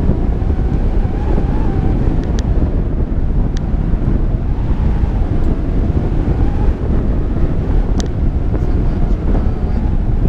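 Steady rush of airflow buffeting the microphone of a camera mounted on a hang glider's frame in flight.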